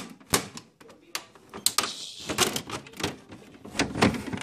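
Hands handling a hollow plastic toy bus: irregular clicks, taps and knocks of plastic, a few a second, with rubbing in between.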